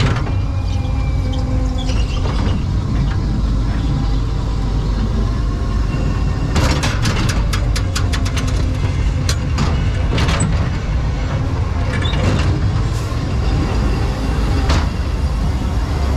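Ghost train car rolling along its track: a steady low rumble, with a run of rapid clicking and rattling a little over six seconds in and a few single clacks later. Faint fairground music underneath.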